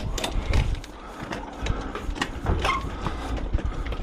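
A washing machine being wheeled on a hand trolley: irregular clunks and rattles over a low rumble from the wheels.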